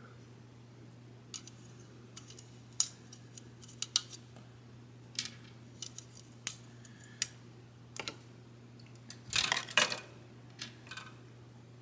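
Small snap-fit plastic model-kit parts being handled and pressed together, here a Mew figure's arm. The result is scattered light clicks and taps, with a louder run of clicks about nine to ten seconds in.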